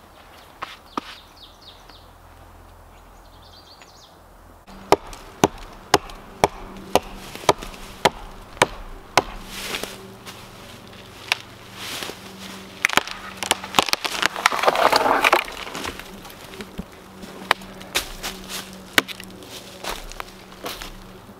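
Camp axe chopping dead wood: sharp strikes coming steadily about two a second, beginning about five seconds in after a quieter stretch. A brief louder rustling noise comes about two-thirds of the way through.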